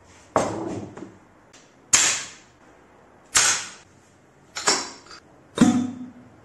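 Mallet striking a Fox 36 suspension fork, five sharp knocks spaced a little over a second apart, each dying away quickly: the blows that knock the damper and air shafts loose from the lower legs so the lowers can come off.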